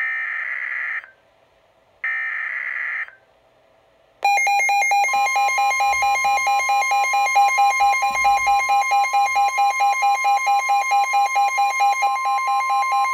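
NOAA Weather Radio SAME data header, the last two of its three one-second warbling data bursts with a second's gap between them. About four seconds in, a Midland WR-120 weather radio's alarm starts beeping rapidly, several times a second, over the steady 1050 Hz warning alarm tone. Together they are the alert sounding for a new tornado warning.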